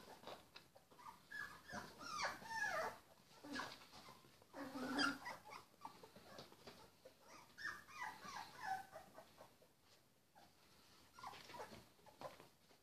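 Three-week-old puppies whimpering and squeaking in short, high calls. The calls come in several bouts with quiet gaps between.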